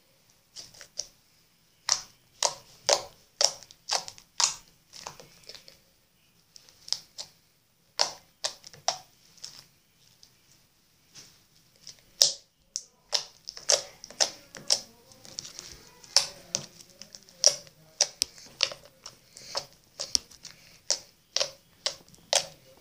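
Clear-glue slime being poked and pressed with fingers, giving an irregular run of sharp sticky pops and clicks, a few a second. They thin out for a few seconds in the middle, then come thick and fast again.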